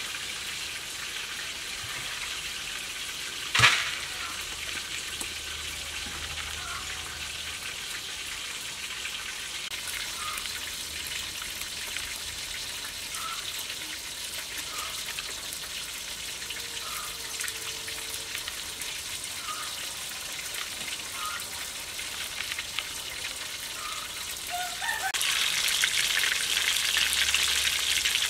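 A steady hiss with a few faint short chirps and one sharp knock about three and a half seconds in. Near the end it turns to the louder sizzle of fish pieces deep-frying in oil.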